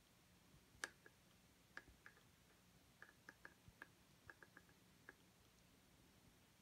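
Near silence: quiet room tone with about a dozen faint, irregular light clicks, the strongest about a second in and several close together around the middle.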